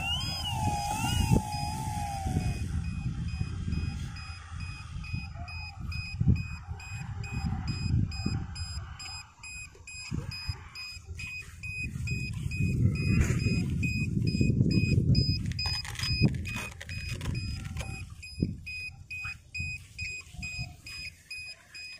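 Wind rumbling on the microphone in a field, loudest about two thirds of the way through. A steady high electronic beep repeats rapidly from about four seconds in, and a wavering whine fades out in the first two seconds.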